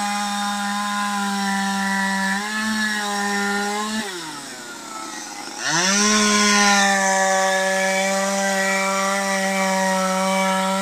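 Two-stroke chainsaw running at high revs as it carves into a log, its note dipping briefly a couple of seconds in. About four seconds in the throttle is let off and the engine falls away toward idle. A second and a half later it revs back up sharply and cuts on steadily.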